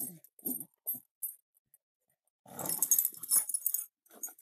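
Two young American pit bull terriers growling in short bursts while tugging on a garden hose, with a louder, longer stretch of growling about two and a half seconds in.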